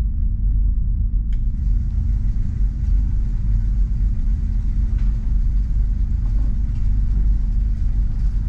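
Steady low mechanical rumble with a constant hum underneath and no gunshots, as the shooting-range machinery runs. A faint click comes about a second in.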